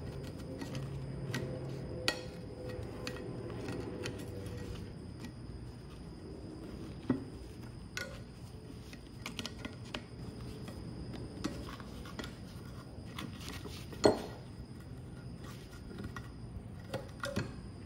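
Scattered metal clicks and clinks of pliers working at a steel coil spring on the vise screw inside the vise body, with a sharper knock about 14 seconds in and a quick run of clinks near the end.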